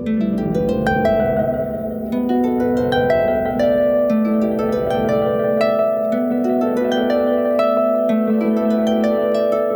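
Harp played through an Old Blood Noise Endeavors BL-52 phase repeater pedal: plucked notes repeat and overlap as phased delay echoes.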